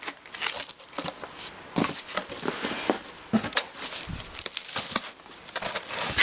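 Cardboard box flaps pulled open by hand and the packing inside rustled and crinkled, in a run of irregular scrapes and crackles.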